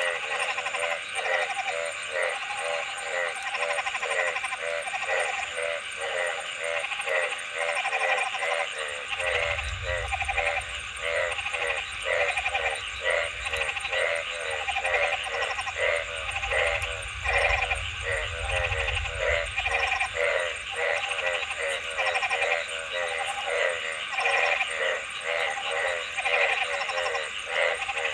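A chorus of frogs croaking, many short pulsed calls overlapping and repeating about twice a second without a break. A low rumble runs under the calls through the middle stretch.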